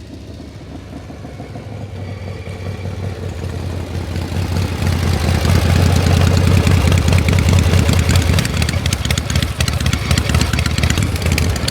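Heavy mechanical rumble with metallic clattering, growing louder over the first half and then holding steady and loud.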